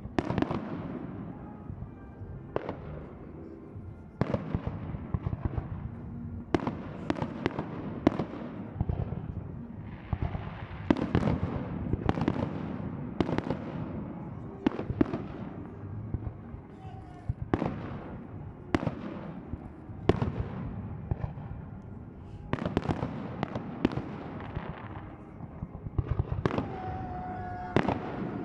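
Fireworks display: a long run of shell bursts going off at irregular intervals, sometimes several in quick succession, each bang trailing off.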